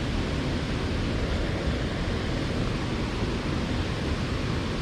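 Steady rush of a small stream's flowing water, an even noise with no breaks.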